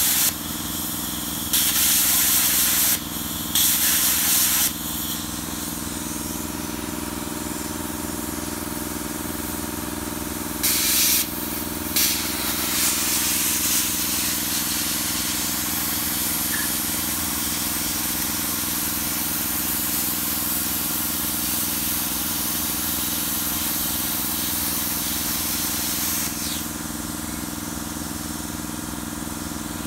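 Plasma cutter torch hissing over a steady machine hum. Several short bursts of hiss come in the first five seconds and again around eleven seconds. From about twelve seconds a long continuous hiss of a cut runs until it stops a few seconds before the end. The cutter is working again after its input diode bridge was replaced.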